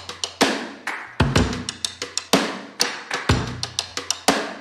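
Music with a steady drum-kit beat: regularly spaced kick and snare hits with cymbal ticks over them.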